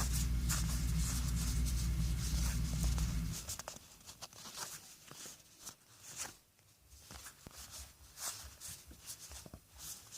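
Trading cards being handled and shuffled, with soft rustles and light clicks. A steady low hum underneath cuts off suddenly about three seconds in.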